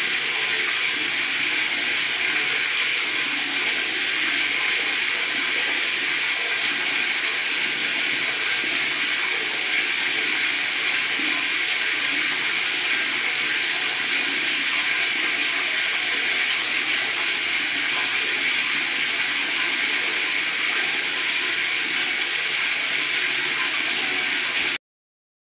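Tap water pouring into a bathtub, a steady splashing rush with gurgling underneath. It cuts off suddenly near the end.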